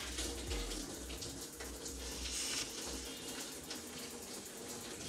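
Steady rush of water running from an open tap as the booster system's expansion vessel is emptied of its water.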